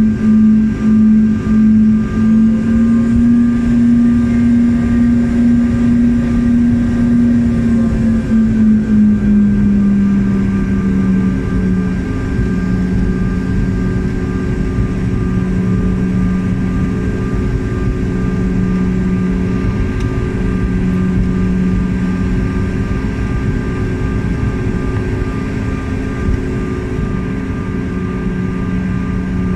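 Airliner engines heard inside the passenger cabin: a steady low drone with a strong hum and a few fainter higher tones over a rumble. The hum wavers in loudness at first, then settles a little lower in pitch about ten seconds in.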